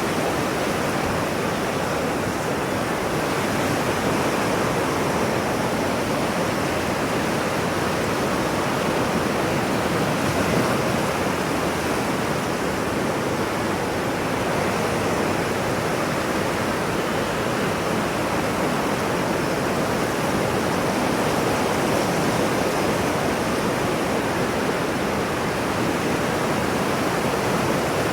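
Steady, even rush of ocean surf noise, with no distinct waves rising and falling.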